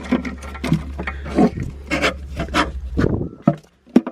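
Loose items in a truck's cabin being rummaged through by hand: irregular rubbing, scraping and rustling, with a sharp click near the end.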